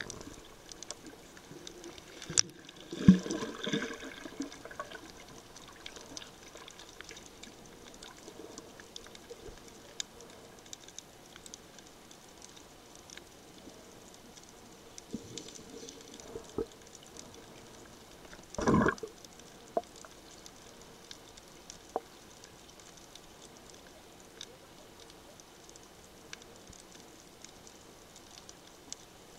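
Muffled underwater sound from a camera below the surface: a low crackle with scattered small clicks. Louder bursts of water noise come about three seconds in, the loudest starting with a sharp click, and again about two-thirds of the way through.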